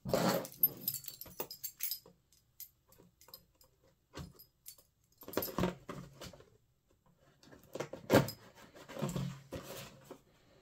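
Cardboard window box handled and opened by hand: rustling and scraping in several short bursts as the tape seal is peeled and the top flap pried open, with a sharp tap about three-quarters of the way through.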